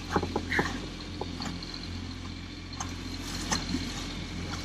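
Steady low rush of wind and water around a sailboat under sail, with scattered small clicks and taps from the boat's fittings.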